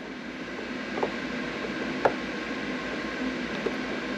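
A few faint clicks and taps of Hornby model railway track being handled and lined up to join, the clearest about two seconds in, over a steady room hum.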